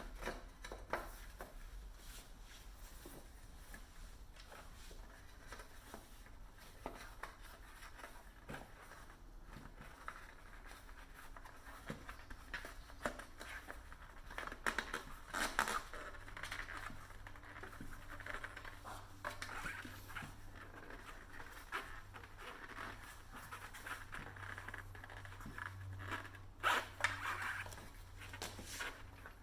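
Tubeless road-bike tyre bead being worked onto the wheel rim by hand: irregular rubbing and scraping of rubber against the rim, with louder scrapes about halfway and near the end. The bead goes on stiffly. A faint low hum comes in about halfway.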